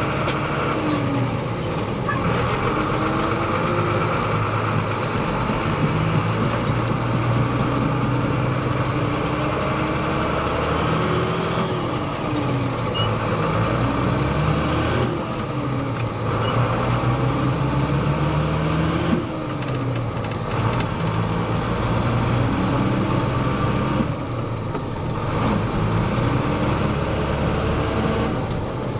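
Fendt Favorit 822 tractor's six-cylinder turbo diesel engine running under load with a full trailer. Its note rises and falls several times, and the turbocharger whistles as a high whine above it.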